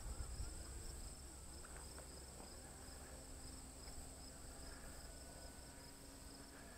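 Faint steady chirring of crickets, with the distant hum of a small RC airplane's motor and propeller that comes and goes as the motor cuts in and out. A soft thump right at the start.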